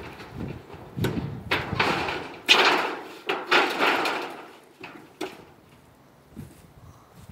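Old sheet-tin roofing and wood being pried and pulled apart: a series of scraping, sliding pulls with sharp knocks in between, dying down to a few light knocks in the second half.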